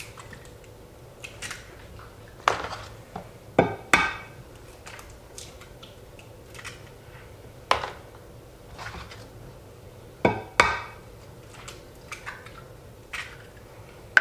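Eggs knocked against the rim of a Thermomix's stainless steel mixing bowl and cracked open: a series of sharp knocks and clicks, several in close pairs.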